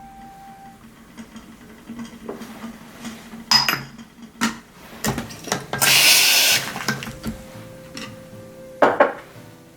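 Metal clinks and knocks of espresso gear as a La Pavoni bottomless portafilter is readied for a shot, with a short hiss lasting about a second around six seconds in and a louder knock near the end.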